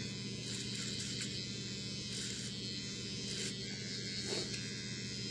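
Electric hair clippers buzzing steadily while cutting hair, with a brighter rasp about once a second as the blades pass through the hair.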